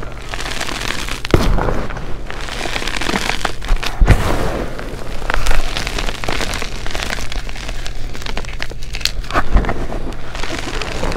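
Gloved hands crushing and squeezing gym chalk: a dense, continuous crunching and crumbling with sharp crackles every few seconds.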